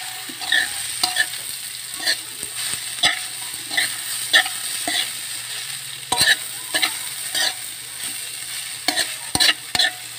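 A metal spoon scraping and clinking against a stainless steel pan as shredded green papaya is stirred, in uneven strokes about twice a second, over the steady sizzle of the papaya sautéing.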